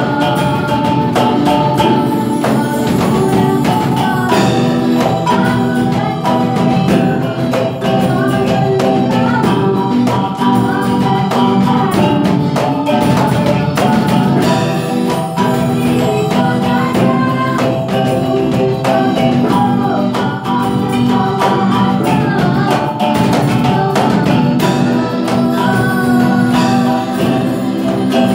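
Caklempong ensemble playing: rows of small kettle gongs struck with beaters in dense, interlocking patterns of steady ringing pitches. A male voice sings over them through a microphone.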